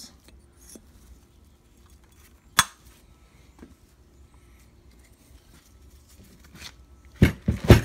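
Metal clinks and knocks from handling a Subaru EJ22T cylinder head and its valves: one sharp clink about two and a half seconds in, then a quick cluster of louder knocks near the end.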